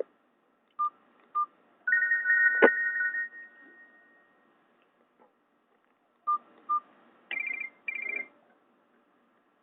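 Nokia 216 mobile phone sounding Nokia E72 tones through its small speaker. There are two short key beeps, then a warbling two-tone alert lasting about a second and a half, with a click in the middle. After a gap come two more beeps and then two quick higher chirps near the end.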